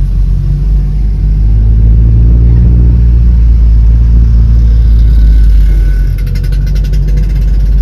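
Honda Accord Cielo's engine and road rumble heard from inside the cabin, a steady deep drone at low speed in slow traffic. A brief rapid ticking comes in near the end.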